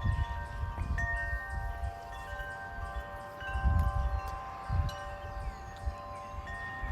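Wind chimes ringing in the wind, several long tones overlapping and dying away as new ones are struck. Wind gusts rumble on the microphone, strongest about halfway through.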